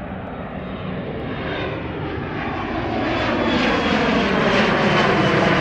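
Jet airliner passing low near the runway, its engine roar growing steadily louder, with whining tones that slide in pitch as it goes by.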